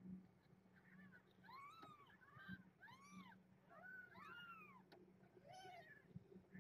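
Newborn kittens mewing faintly: a string of about seven short, high-pitched calls, each rising and falling in pitch, in quick succession.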